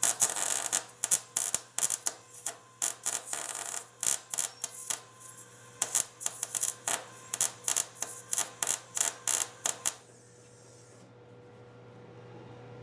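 Electric arc welder crackling and sputtering in a run of short, uneven bursts while welding a nut onto a broken bolt stub, stopping about ten seconds in. A steady low hum runs underneath.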